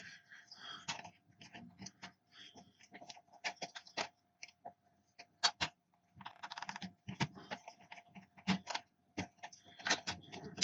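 Irregular small clicks and taps of PlayStation 4 console parts and a cable plug being handled and pressed into place, with a faint steady tone underneath.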